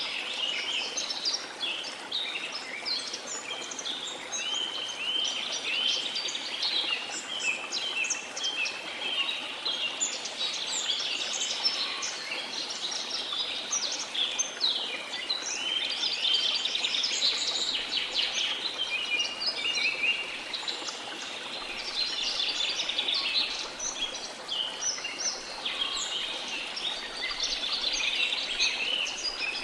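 Many small birds chirping and twittering at once in a dense, continuous chorus, over a steady wash of sea noise underneath.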